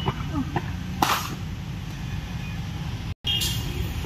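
Cricket bat striking a ball about a second in: a single sharp crack over a steady low background rumble. The sound drops out for a moment near the end.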